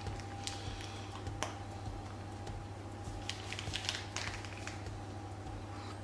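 Soft squishes and scattered light clicks of a plastic piping bag being squeezed as madeleine batter is piped into a silicone mould, over a steady low hum.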